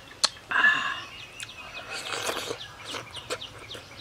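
Mouth sounds of eating soft ripe mango flesh: a sharp wet smack, then a slurp about two seconds in. A chicken clucks once, briefly and loudly, about half a second in.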